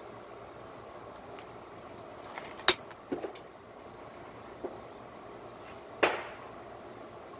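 Pressure flaking a cherry quartz slab with a metal-tipped pressure flaker: two sharp snaps as flakes pop off the edge, under three seconds in and about six seconds in, with a few fainter ticks between them.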